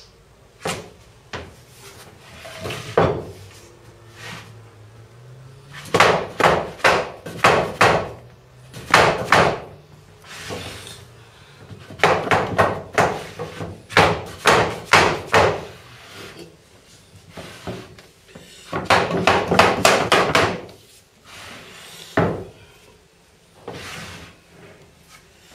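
Hammer blows on wooden floorboards, coming in quick runs of several strikes a second with short pauses between runs, as boards are nailed or knocked into place during floor laying.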